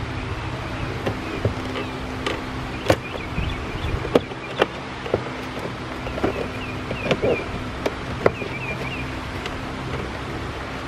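Plastic windshield cowl panel being pressed into place, with sharp clicks and knocks from its clips snapping in and the plastic being handled, over a steady background hum.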